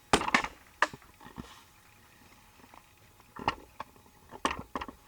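Sharp pops and cracks from the ceiling, in two clusters of about four each with a quiet gap between them.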